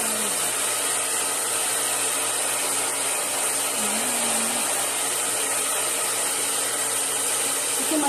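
Handheld hair dryer running steadily, blowing air onto long hair, a constant even rush with no change in speed.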